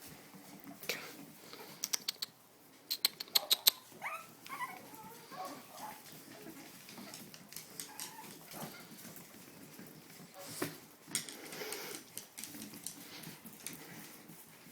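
Young Boston Terrier puppies giving short, wavering squeaks and whimpers about four seconds in. Around them are scuffling and a quick run of sharp clicks.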